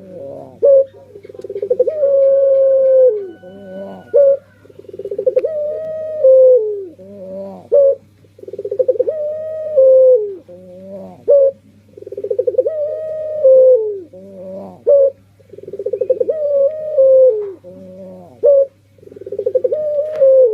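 Male puter pelung dove cooing its song. The phrase repeats about six times: a long, rolling coo that holds and then falls in pitch, followed by two short coos. A faint steady electrical hum runs underneath.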